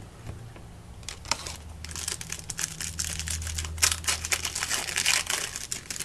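Foil trading-card pack wrapper crinkling and tearing open, in dense crackles from about a second in until near the end.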